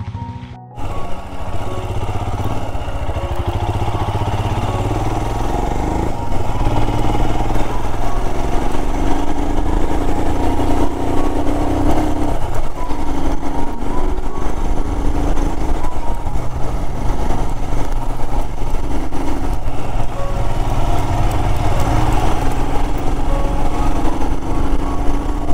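Royal Enfield Himalayan's 411 cc single-cylinder engine running as the motorcycle rides along a dirt trail, heard from the handlebars, louder from about six seconds in.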